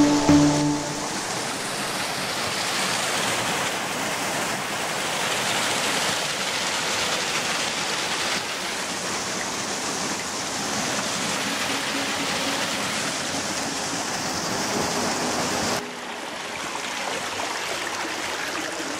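Rocky forest stream running, a steady even rush of water. About three-quarters of the way through it drops suddenly quieter, and faint music comes in.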